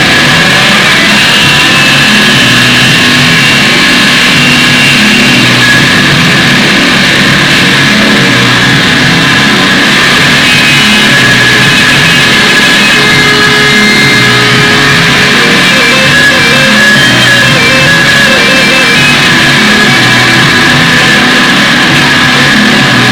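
Loud, dense rock music with distorted guitar, kept at a constant level throughout.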